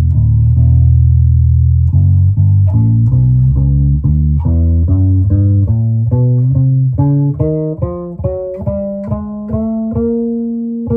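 Warwick RockBass Corvette $$ bass guitar played with both humbuckers switched to parallel and the tone control off. A low note rings for about two seconds, then a run of single plucked notes climbs steadily in pitch and gets quicker toward the end.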